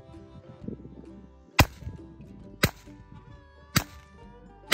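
Smith & Wesson M&P 22 pistol firing .22 rounds: three shots about a second apart, with a fourth right at the end.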